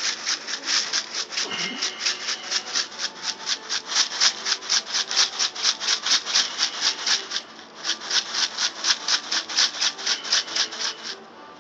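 Plastic spice shaker jar shaken to sprinkle dry seasoning, the granules rattling in quick, even strokes about five a second, with a short break about seven and a half seconds in.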